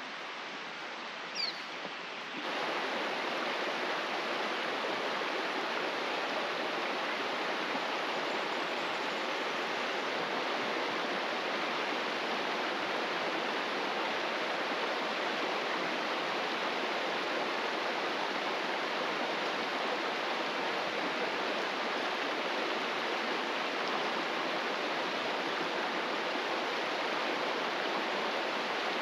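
Shallow, rocky mountain creek rushing steadily over stones and small rapids. It comes in suddenly about two seconds in, after a quieter stretch of outdoor ambience.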